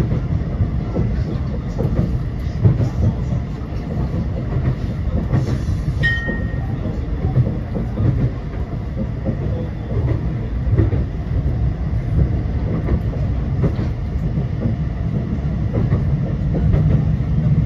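Tram running along the line: a steady low rumble with light wheel clicks over the rails, and a short hiss followed by a brief high-pitched tone about six seconds in.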